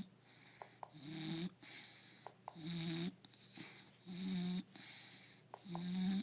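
Bulldog snoring in its sleep: a deep, pitched snore about every second and a half, four in all, with a breathy hiss between them.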